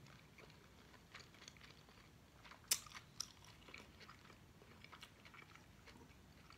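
Faint chewing of braised chicken wings with small wet mouth clicks, and a sharper click just under three seconds in followed by another about half a second later.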